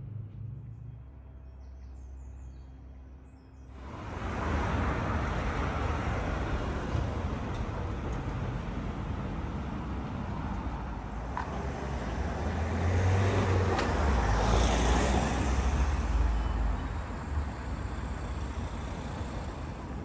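Road traffic on a city street: a steady noise of passing vehicles that swells as one passes louder about two-thirds of the way through. It is preceded by a few seconds of quieter low hum that cuts off abruptly.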